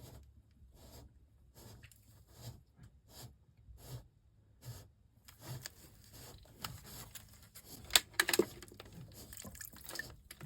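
Faint, scattered scrapes and knocks of a propeller shaft being slid slowly through a dripless shaft seal, with a few sharper metallic clicks about eight seconds in.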